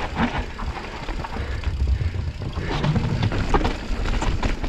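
A mountain bike descending a dirt trail: a steady rumble of tyres over dirt and roots, with many small clicks and rattles from the bike over bumps.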